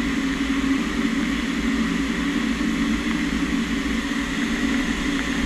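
CNC lathe taking a finishing facing cut on a 15-5 stainless steel part with a carbide CNMG insert under flood coolant. The spindle and cut make a steady drone with a faint high whine, over the hiss of coolant spray.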